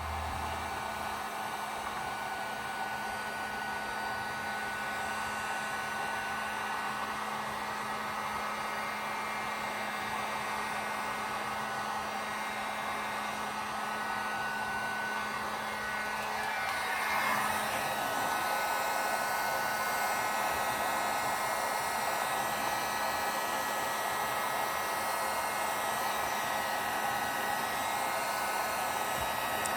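Heat gun blowing steadily: a fan hum and rushing air with a faint steady whine, growing a little louder and brighter about halfway through. It is heating a BOA heat-shrink clamp to shrink it tight onto a hose cover.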